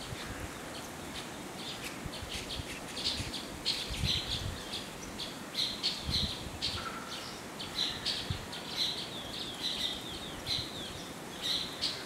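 Small birds chirping: short, high chirps repeated irregularly, growing busier through the second half, over a faint steady background hiss.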